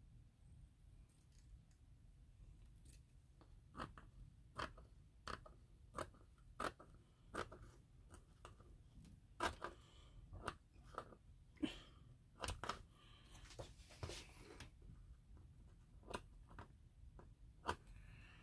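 Scissors snipping through a fine mesh tube: a long run of quiet, crisp snips, roughly one or two a second.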